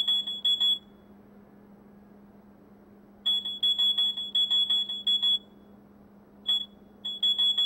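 Electronic alarm buzzer on the data-acquisition controller's output, beeping rapidly at about five high-pitched beeps a second. It stops about a second in, starts again near the middle, cuts out, blips once, and resumes near the end. It sounds while the pressure-sensor reading is within the alarm thresholds.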